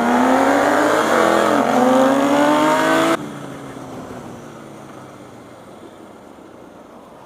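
Motorcycle engine revving up hard under acceleration, its pitch climbing with a brief dip about a second in. The engine sound cuts off abruptly about three seconds in, leaving a quieter steady rush.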